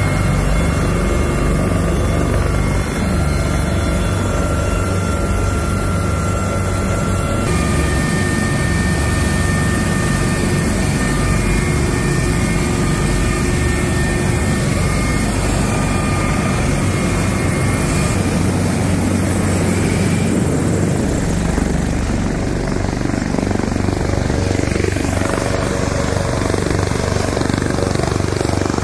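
Coastguard search-and-rescue helicopter running on the ground with its rotors turning, a steady loud turbine and rotor noise, heard first from inside the open cabin and then from outside. The sound changes abruptly about a quarter of the way in.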